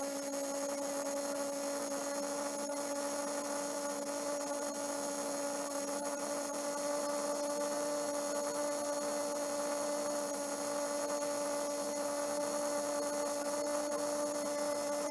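Small electric motor of a 1960s Tyco MU2 model-train power truck running on test power after servicing, a steady hum that creeps slightly up in pitch.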